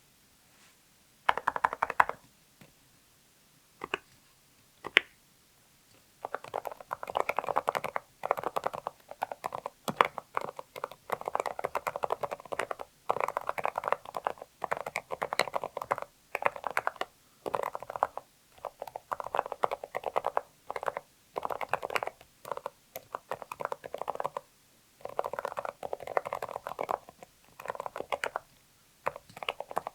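Typing on a Zoom65 mechanical keyboard with factory-lubed Kailh Deep Sea Silent Box Islet silent linear switches, an aluminium plate and PBT double-shot keycaps: soft, creamy, muted keystrokes. A few single presses come about a second in, then quick runs of keystrokes with short pauses.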